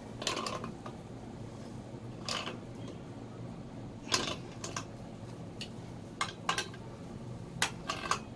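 Pliers working the nut of a chrome bath mixer tap onto its brass wall connector: scattered sharp metal clicks and clinks as the jaws grip and turn, over a low steady hum.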